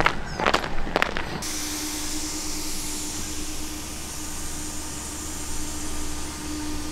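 A few brief voice sounds, then after a sudden cut a steady, even hiss with a faint low hum and one steady tone running under it.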